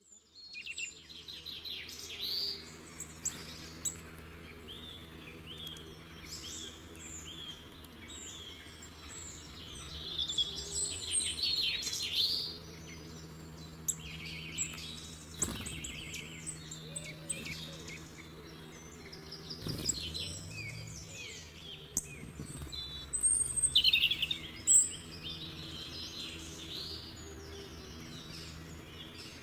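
A chorus of wild birds singing and calling, with many overlapping chirps and trills that come in busier spells, over a faint steady low hum.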